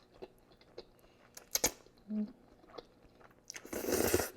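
Eating sounds, with mouth noises of chewing chicken Alfredo and a few sharp clicks, then a loud noisy burst lasting under a second near the end.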